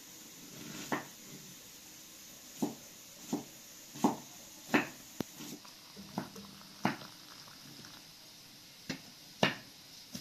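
A knife chopping on a wooden cutting board: about ten sharp, irregular knocks, the loudest about four seconds in and near the end.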